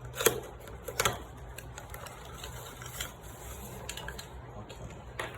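A computer mouse's retail packaging being opened by hand: a few sharp clicks and scrapes, the loudest about a quarter second in and another about a second in, with smaller ticks between.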